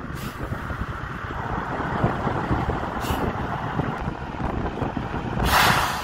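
Heavy dump truck running during unloading, with a short loud hiss of released air about five and a half seconds in.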